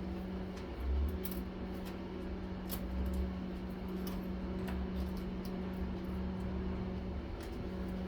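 Steady low hum in the background with a few faint clicks and taps of metal parts as a vacuum motor is taken apart by hand.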